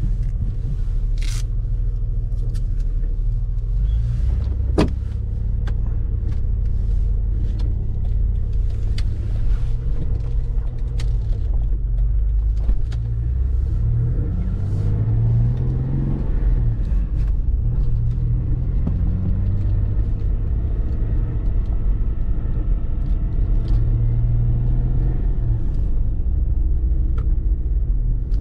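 Cabin sound of a 1989 Citroën XM on the move: a steady low engine and road rumble, with the engine note rising and falling a few times around the middle as the car accelerates. A few sharp clicks come from inside the car in the first few seconds.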